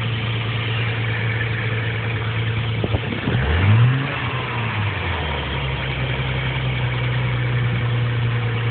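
Nissan 300ZX engine idling after a cold start, with a sharp click about three seconds in followed by one quick rev that rises and falls back to idle. The uploader calls the noise it makes a scraping, rotating sound on cold start.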